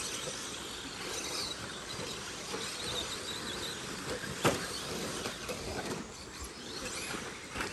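1/10-scale RC buggies racing on a dirt track: a high whine of their motors over tyre noise, with one sharp knock about four and a half seconds in.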